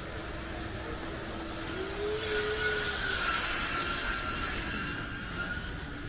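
Tobu Tojo Line train running past, swelling about two seconds in with a steady high squeal over the rumble of the cars, and a brief sharp squeak near the end.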